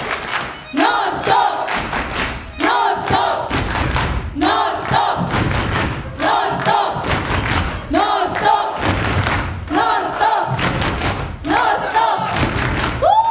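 A large group chanting a short sung phrase over and over, about every two seconds, with rhythmic clapping and low thumps between the phrases.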